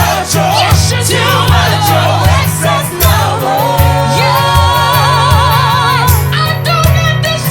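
Gospel worship band with singing: a voice runs through wavering ad-lib lines, then holds one long note with vibrato from about four to six seconds in, over a bass line and drums.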